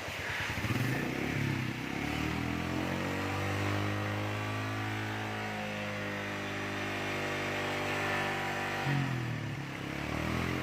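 Royal Enfield Meteor 350's single-cylinder engine revving up from idle and running at steady revs, its pitch dropping briefly near the end and then climbing again.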